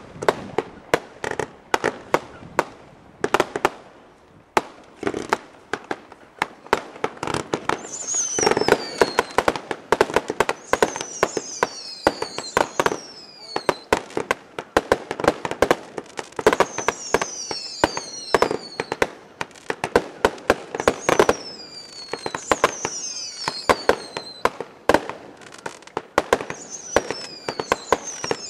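Aerial fireworks display: launches and shell bursts cracking in rapid succession. From about eight seconds in, repeated whistles falling in pitch sound over the bangs.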